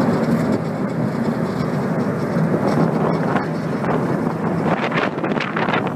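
Car ferry under way, its engines droning steadily, with wind buffeting the microphone in gusts that grow stronger near the end.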